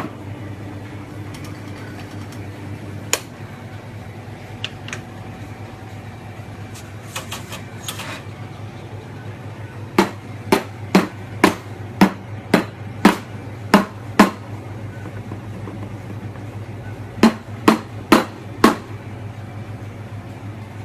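Espresso machine humming steadily, with a run of sharp knocks at about two a second for four seconds, then four more a few seconds later.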